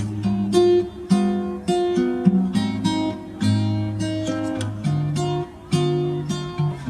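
Background music: acoustic guitar playing a run of plucked and strummed chords.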